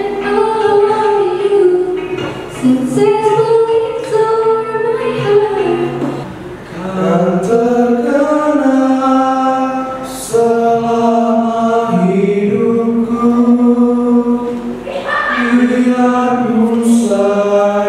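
Unaccompanied singing through a microphone PA. A girl's voice sings for the first six seconds, then, after a short dip, two boys' voices sing lower for the rest.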